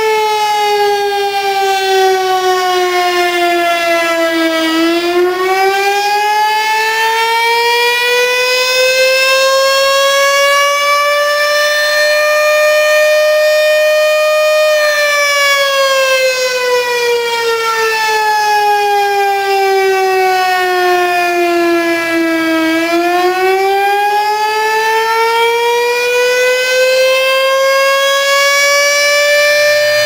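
STH-10 outdoor warning siren sounding a fire alert with one loud, steady tone that slowly wails. The tone slides down for the first few seconds, climbs to a peak about halfway, falls again, and is rising once more near the end.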